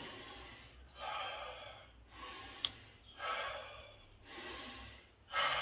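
A man taking five or six forceful breaths about a second apart, psyching up and bracing before a 250 kg back squat. There is one small click partway through.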